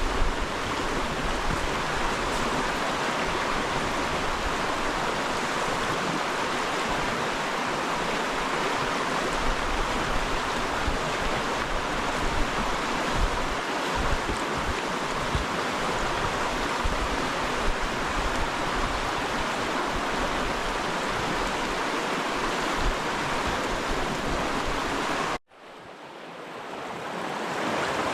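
River water rushing steadily. About 25 seconds in it cuts off abruptly, then fades back in over a couple of seconds.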